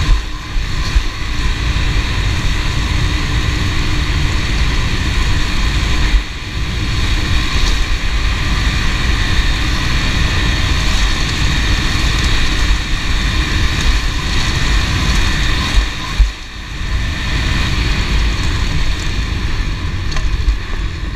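Honda CRF110 pit bike's small single-cylinder four-stroke engine running steadily at riding speed, with rumble and wind noise; the engine note drops briefly a few times, around six and sixteen seconds in.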